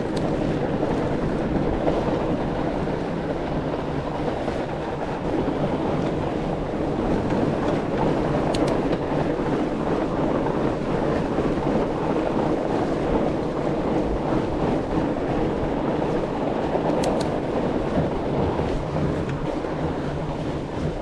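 Mountain bike riding over a snow-covered trail: a steady rumble and rattle from the tyres rolling over the snow and the bike itself.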